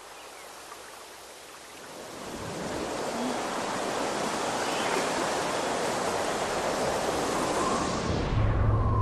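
Rushing, wind-like whoosh of a TV channel ident's sound design, swelling up about two seconds in and holding steady; near the end its high hiss thins out as a low hum and a higher tone come in.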